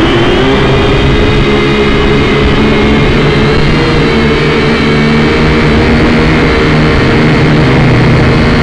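Small drone's electric motors and propellers whirring loudly and steadily in flight, heard close up through its own onboard camera, with the pitch edging up slightly in the first second.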